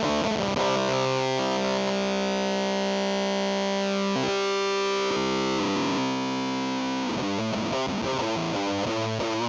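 Electric guitar (Epiphone SG 400) through a Fuzz Factory fuzz pedal, played with heavy fuzz distortion. Short choppy riffing gives way to a long held chord about a second and a half in, with a falling pitch sweep through its upper tones, and the riffing resumes near the end.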